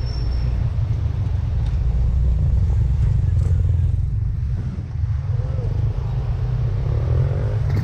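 Yamaha Mio Gravis scooter on the move: a steady low rumble of wind on the microphone and road noise, with the scooter's engine running underneath.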